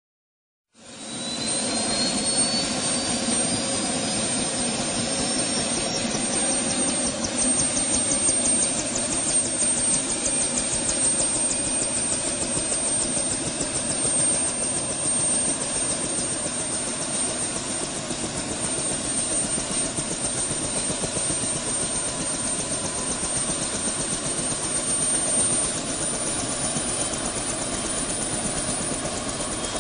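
Helicopter starting up. A high whine rises in pitch over the first ten seconds or so and then holds steady, while the rotor's even beat grows faster and faster.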